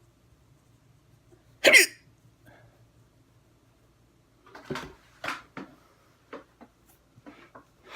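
A person hiccuping hard: one loud hiccup about two seconds in, then a run of quicker, softer hiccups in the second half.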